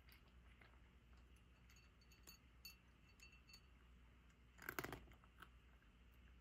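A cat eating dry kibble from a ceramic bowl: faint crunching and clicking as it chews, with one louder crunch a little under five seconds in.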